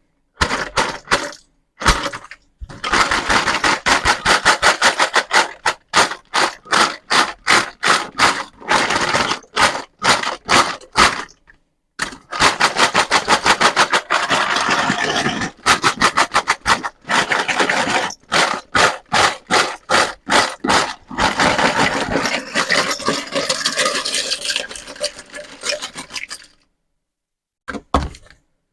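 Rapid scraping and rattling of small toys being handled, many quick strokes a second in long runs, broken by short pauses about two, twelve and twenty-seven seconds in.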